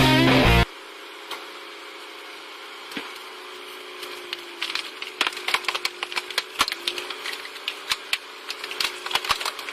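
Rock music with guitar cuts off under a second in. Then wood cracks and splinters in quick, irregular snaps that grow denser, over a faint steady hum.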